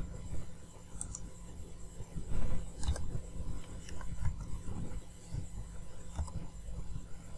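A few separate clicks of a computer mouse and keyboard over a steady low hum, with a brief louder low rustle about two seconds in.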